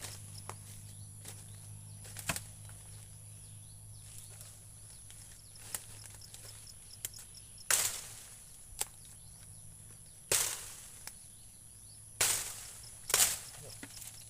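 Sharp strikes of hand work, about six at uneven intervals, over a steady low hum.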